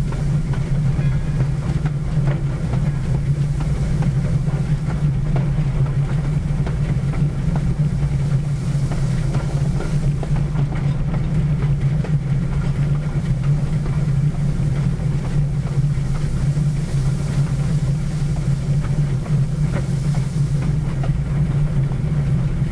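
Pere Marquette 1225, a Lima-built 2-8-4 Berkshire steam locomotive, running along the track, heard from the front of the engine: a steady low rumble with scattered faint clicks.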